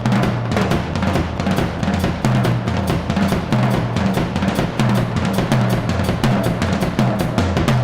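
Drum kit played solo in a very large room: a fast, unbroken run of strokes on snare and bass drum.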